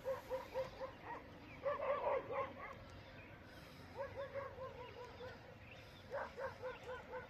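A dog barking in four quick runs of short, yelping barks, several a second.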